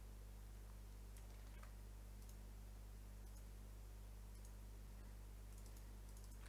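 Faint, scattered computer mouse clicks and key presses over a steady low hum.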